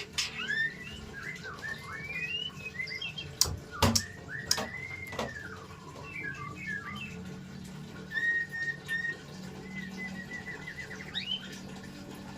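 White-rumped shama singing a varied run of whistled phrases: quick rising and falling notes, one long arching whistle and a string of short level notes. Two sharp knocks come about three and a half to four seconds in.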